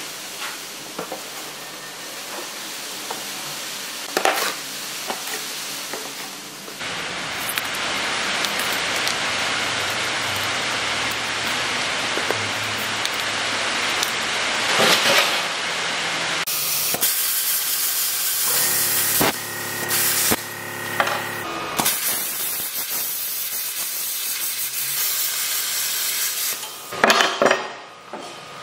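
Workshop sounds over several cuts: a steady hiss with scattered knocks and clatter, a steady machine hum for about five seconds in the middle, and a burst of sharp metal knocks near the end.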